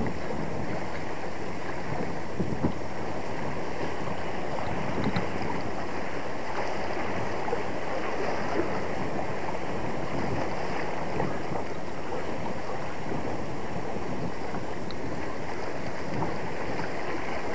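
Steady wind buffeting the microphone, over sea waves washing against shore rocks.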